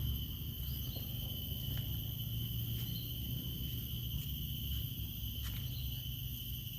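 Insects trilling steadily over a low rumble, with a few faint clicks.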